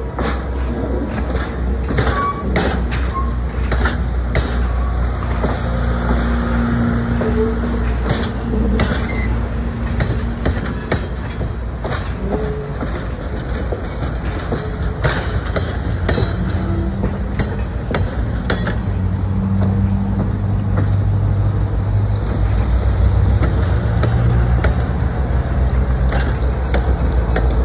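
Train on the move: a steady low engine rumble whose pitch shifts a couple of times, with frequent irregular clanks and knocks from the running gear and cars.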